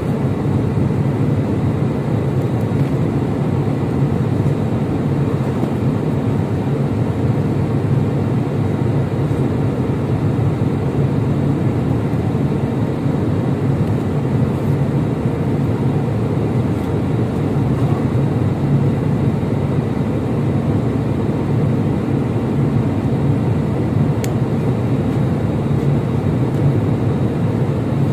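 Airliner cabin noise in flight: a steady low rumble that does not change.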